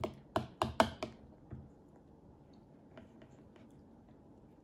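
A metal spoon clinking and scraping against a ceramic plate as rice is scooped: a quick run of sharp clinks in the first second and a half, then a few fainter taps later on.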